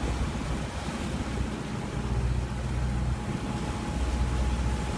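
Wind buffeting the microphone over the rush and splash of waves along the hull of a sailboat under way in choppy water, the low rumble of the wind gusting stronger about two seconds in.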